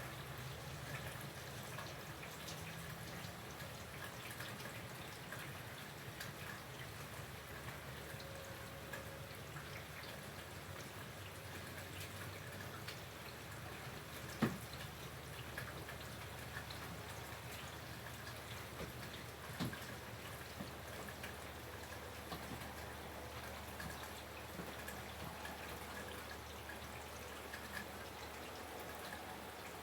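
Steady rain with many small drips and patters of water. A single sharp knock about halfway through is the loudest sound, with a weaker one a few seconds later.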